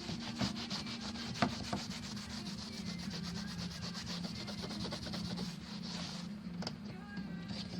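Rapid, even scraping or rasping strokes over a steady low hum, with a short break near the end.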